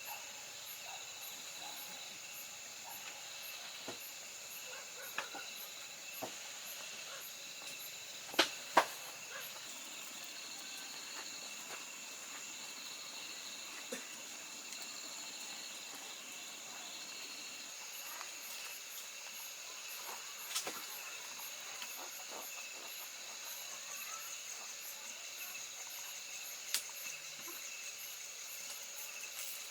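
Insects chirring steadily in several high tones, with a higher chirp pulsing about twice a second. A few sharp clicks cut through, the loudest a pair close together about eight seconds in.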